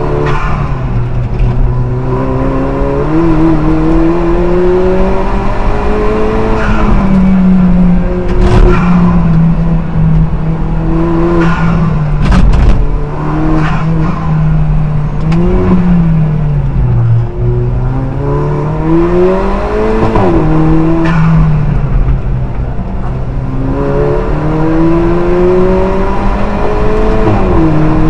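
Alfa Romeo 4C race car's turbocharged four-cylinder engine under hard driving, heard loud from inside the cockpit. The engine note climbs over a few seconds and drops sharply, again and again, as it is run up through the gears and brought back down for corners.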